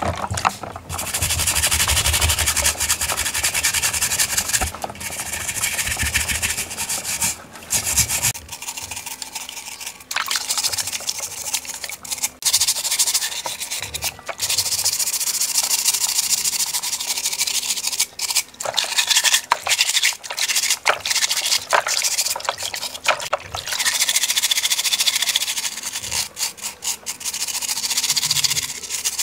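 Green scouring pad scrubbing rusted rifle parts in a basin of soapy water, in runs of rubbing strokes broken by brief pauses.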